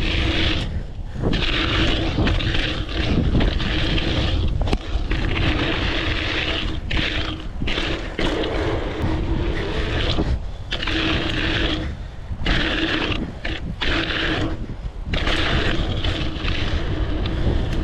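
Budget mountain bike riding a BMX track: tyres rolling over the rough track surface, with wind buffeting the camera's microphone and a humming tone that comes and goes.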